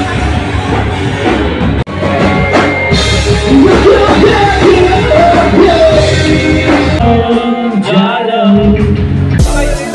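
A live rock band playing loudly, with electric guitars, drums and a singer; the sound briefly cuts out about two seconds in.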